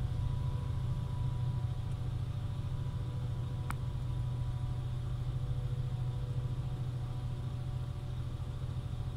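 Steady low rumble of an idling car and a long freight train rolling slowly across a level crossing, heard from inside the car's cabin. A single faint click comes about three and a half seconds in.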